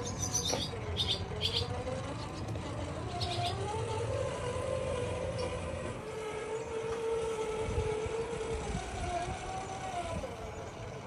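Electric motor and gear whine of a Redcat Gen 9 RC crawler fitted with a Hobbywing Fusion Pro motor, rising and falling in pitch as the throttle changes while it crawls over blocks and gravel. A few short high clicks sound near the start.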